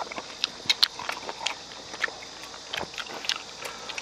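Several people eating: irregular light clicks of chopsticks and spoons against bowls, with chewing, and a few sharper clicks in the first second.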